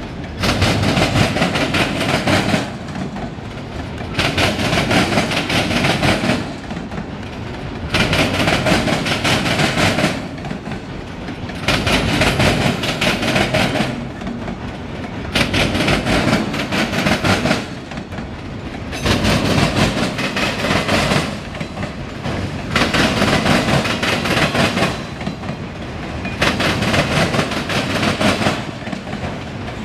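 A freight train's autorack cars rolling past close by: steel wheels clacking and rumbling on the rails. The sound swells loud for a couple of seconds and eases off again, over and over, about every three and a half seconds as car after car goes by.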